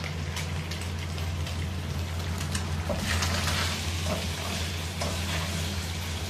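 Food sizzling in a hot wok: a crackling, hissing fry with scattered pops, growing louder for a second or so about halfway through, over a steady low hum.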